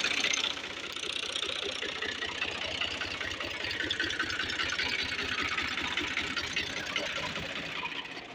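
Al-Ghazi 480S 55 hp tractor's diesel engine idling steadily, with a rapid, even clatter.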